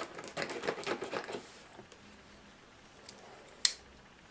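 Cardboard packaging of a gaming mouse box being handled and opened: a quick run of scrapes and clicks for about the first second and a half, then one sharp snap near the end.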